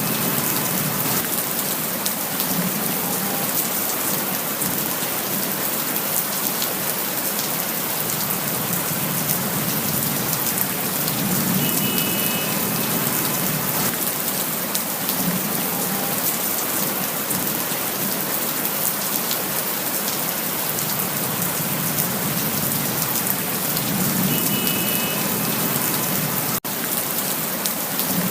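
Steady rain falling on surfaces: a dense, even hiss with many separate drop ticks. A low swell comes back about every twelve seconds, and the sound drops out for an instant near the end.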